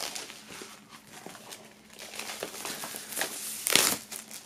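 Plastic shrink-wrap foil crinkling as a vinyl LP sleeve is slid out of it, with louder rustles a little after three seconds in, the loudest just before four seconds.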